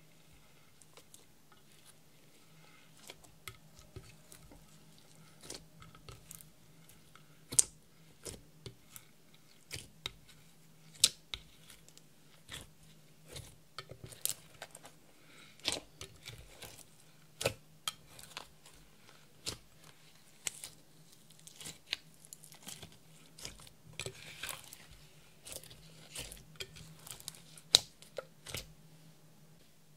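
Clear slime being squished and folded by hand with crushed makeup and glitter mixed in: irregular sharp wet clicks and pops, about one or two a second, a few of them much louder.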